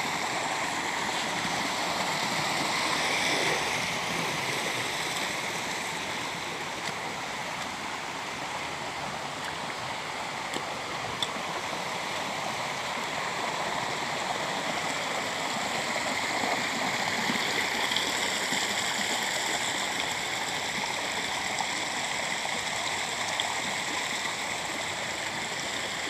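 Shallow stream water running steadily down rock slabs and over small cascades.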